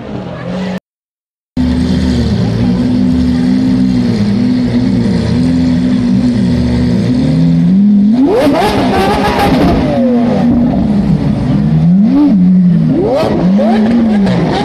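Lamborghini engine revving, its pitch rising and falling over and over, with two sharper, higher revs about eight and twelve seconds in. The sound breaks off briefly about a second in.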